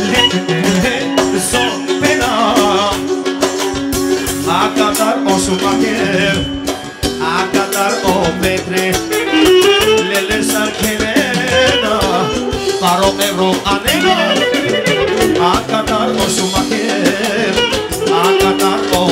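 Live band playing loud, fast dance music, with clarinet leading an ornamented melody over a drum kit.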